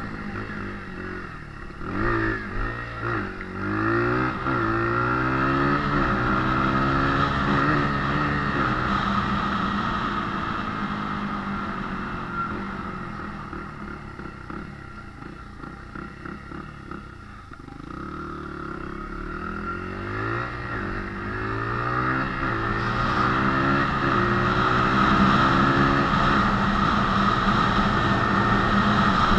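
Honda CRF80F dirt bike's small single-cylinder four-stroke engine being ridden: it accelerates through the gears, pitch climbing and dropping back at each shift, then eases off and quietens around the middle before pulling up through the gears again and running loud near the end.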